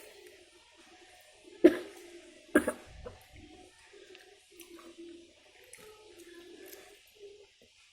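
Mukbang eating sounds: chewing of soy-sauce chicken, with two sharp knocks close together about two seconds in.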